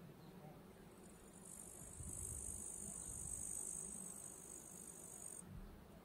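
A stridulating insect makes a faint, steady, high-pitched trill that starts about a second in and stops just before the end. A faint low rumble sits beneath it in the middle.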